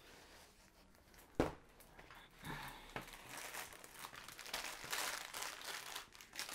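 Clear plastic wrapping of a bundle of diamond-painting drill bags crinkling as it is handled and set down, with a single sharp knock about a second and a half in.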